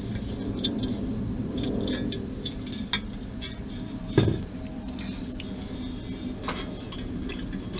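A bird singing a run of short, arched, high chirps repeated every half second or so, with a few sharp clicks and one louder knock about four seconds in from model parts being handled.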